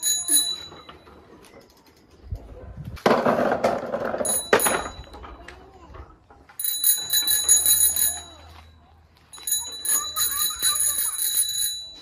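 Child's bicycle bell rung in several spells of rapid ringing, each lasting one to two seconds. About three seconds in there is a loud rush of noise with no ringing.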